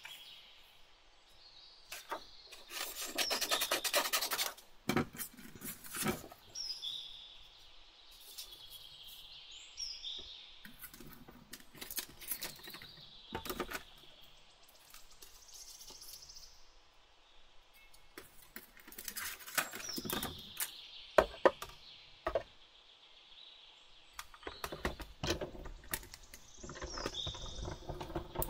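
Plastic cutting plates, a thin metal cutting die and paper being handled and fitted together for die-cutting: rubbing and scraping, with a few sharp clicks and short high squeaks.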